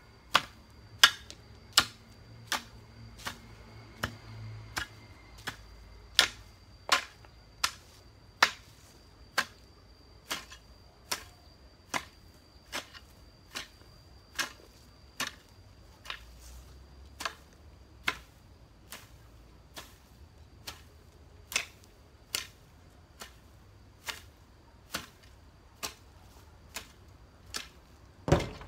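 Hoe blade chopping into grassy soil in a steady rhythm, a sharp strike a little more than once a second.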